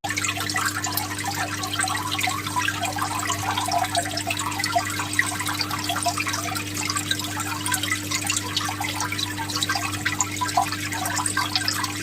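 Water splashing and dripping in a dense, continuous spatter, over a steady low hum.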